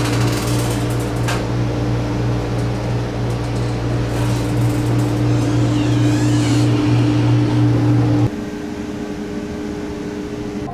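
Steady, loud hum of the ventilation inside a sleeper-train toilet cubicle, with a few clicks and a squeak as the door is handled. About eight seconds in the hum drops away sharply as the cubicle door shuts, leaving the quieter noise of the carriage.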